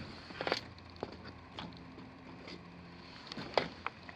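A few scattered light clicks and knocks from handling and moving about, over a faint steady hum.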